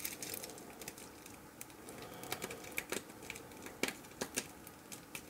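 Faint, irregular light clicks and ticks of a stainless steel watch bracelet's links and clasp being handled while its protective plastic film is worked off.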